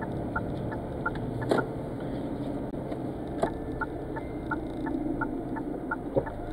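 Car turn-signal indicator ticking steadily, about three clicks a second, over low engine and road noise inside the cabin, with two sharp knocks along the way.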